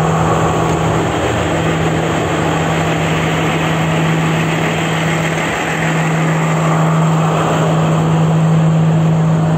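Class S14 diesel train's engine idling, a steady low hum with an even rumble that holds throughout.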